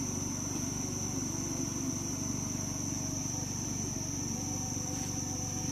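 A steady low motor hum runs unchanged under a constant high-pitched insect drone, likely crickets or cicadas.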